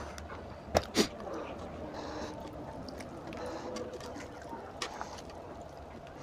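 Hands tearing apart a cooked, curry-soaked mutton head, with wet squelching of meat and gravy. Two sharp clicks about a second in are the loudest sounds.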